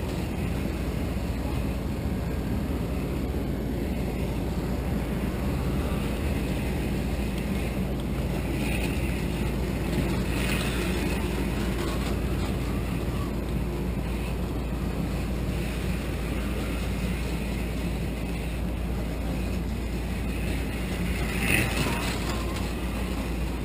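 Athearn HO-scale EMD GP50 model locomotive running along the track close to the microphone: a steady rumble and hum from its small electric motor and wheels on the rails, with a few brief higher rustles along the way.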